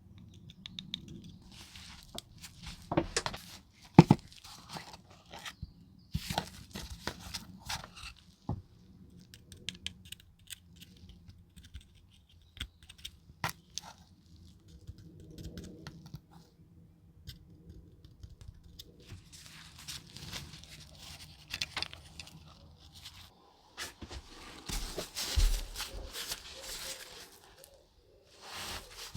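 Small workbench handling sounds from work on a diecast model car: scattered sharp clicks and taps, the loudest about four seconds in, with stretches of rustling, scraping noise, longest in the last third.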